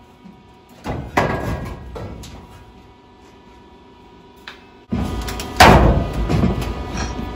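Metal knocks and clanks in a sheet-metal shop: two sharp clanks about a second in that ring away briefly, then from about five seconds a louder rough clatter with one hard bang in it.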